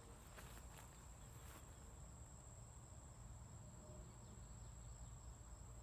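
Near silence: a faint, steady, high-pitched insect drone, with a few faint ticks in the first couple of seconds.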